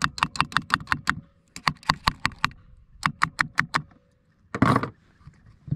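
Trolling motor propeller being worked by hand with pliers to clear grass clogged around the prop shaft: three quick runs of rapid clicking, then a short scrape near the end.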